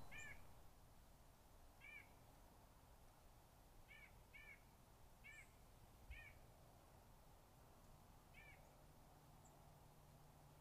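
Faint crow caws: about seven short, arched calls, mostly single and spaced a second or two apart, with a quick pair about four seconds in. A low steady hum comes in about eight seconds in.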